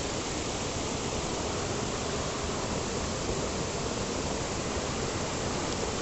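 Seasonal waterfall pouring over rocks into a pool: a steady rush of falling water.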